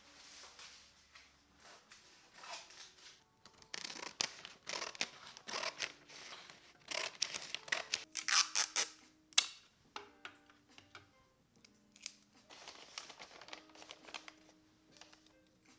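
A run of short, crisp scraping or cutting strokes, thickest in the middle and tapering off toward the end, over soft background music.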